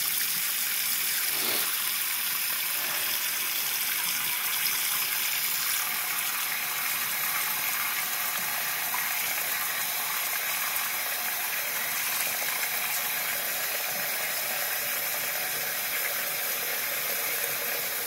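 Tap water running steadily into a sink, an even, continuous hiss.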